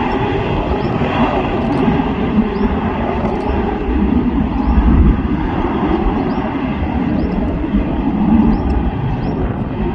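Jet airliner engines giving a loud, steady rumble with no clear rise or fall.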